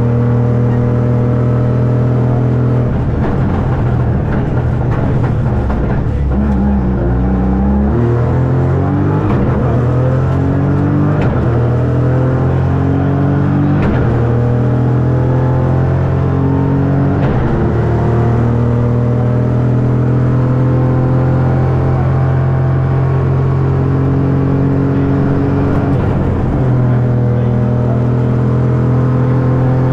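Ford Fiesta Rally3's turbocharged three-cylinder engine driven hard on a rally stage, its pitch climbing and dropping in steps as it shifts through the gears, with stretches held at steady revs.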